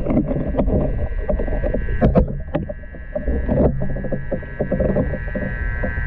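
Sound picked up with the camera under river water: a muffled low rumble of moving water against the microphone, broken by scattered sharp knocks and clicks, a cluster of them about two seconds in. A faint steady high hum runs underneath.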